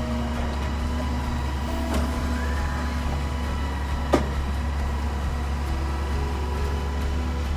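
Diesel engine of a hydraulic log-loading debris truck running steadily under load while it lifts heavy logs, with a sharp knock about four seconds in.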